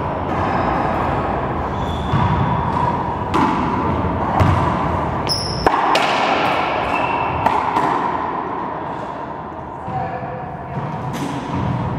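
Racquetball rally in an enclosed court: sharp, echoing smacks of the ball off racquets and walls, with brief squeaks of sneakers on the hardwood floor.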